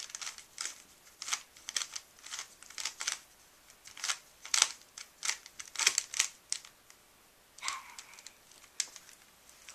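Plastic Rubik's Cube being turned by hand: irregular clicking and clacking of its layers as they rotate, with a short pause about seven seconds in.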